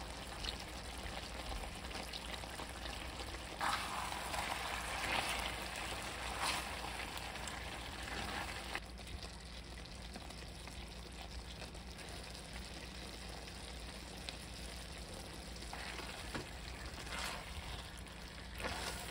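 Spicy braised pork ribs simmering and sizzling in a wok: a steady hiss that is louder for a few seconds from about four seconds in. A spatula knocks lightly against the pan now and then.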